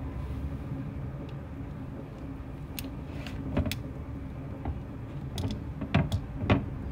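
A few sharp clicks and taps of a hand handling an opened pearl mussel shell in a stainless steel sink, over a steady low hum. The taps come mostly in the second half, the loudest a little before the end.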